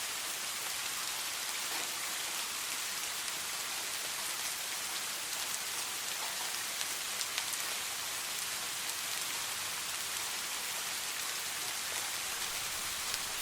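Steady heavy rain falling, an even hiss with the ticks of single drops scattered through it.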